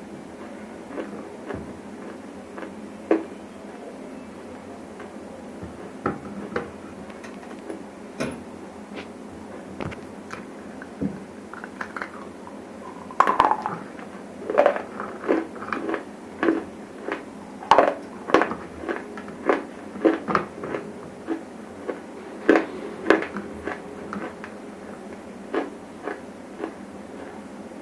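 Close-miked bites and chews of dry grey chalk-like chunks, each bite a sharp crisp crack. Single cracks come a second or two apart at first; about halfway through a quick run of loud crunches follows for some ten seconds, then it thins out again.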